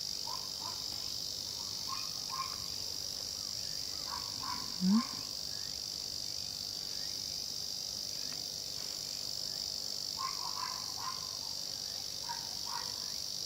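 Steady high-pitched insect drone with scattered short chirps over it, and one brief low rising sound about five seconds in.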